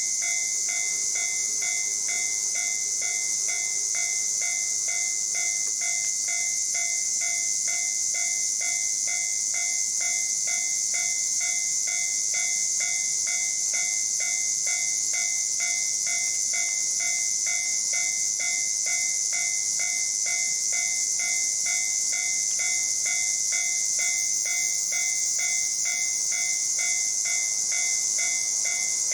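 Japanese railway level-crossing warning bell ringing steadily, an electronic clang repeating about twice a second, which signals that a train is approaching. A steady high-pitched hiss runs under it.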